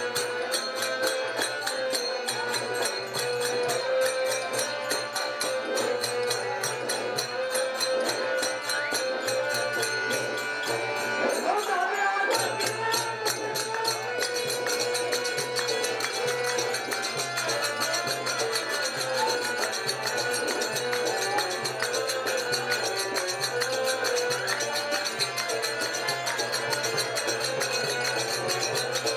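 Traditional Kannada folk-theatre (bayalata) music with a fast, steady beat under a held melodic line. The beat and bass break off briefly about twelve seconds in, then resume.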